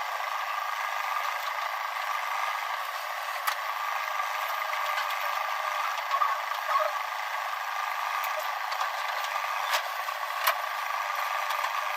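Backhoe loader's diesel engine running steadily at work, with a few sharp metallic knocks from the machine.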